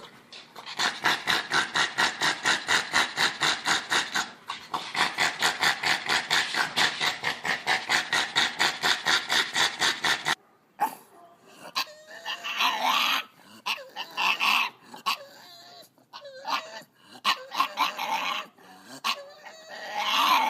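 A dog makes a quick, regular sound about five times a second for roughly ten seconds, with one short break. After a cut, a dog whines in separate calls that slide up and down in pitch.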